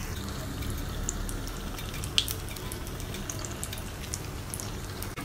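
Chicken cutlets deep-frying in a pan of hot oil: a steady sizzle with scattered small pops and crackles, one sharper pop about two seconds in.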